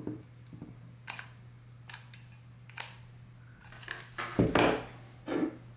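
A hot glue gun dispensing sealing wax: a few sharp clicks from its trigger about a second apart, then heavier knocks and a low thud of handling on the tabletop late on. A low steady hum runs underneath.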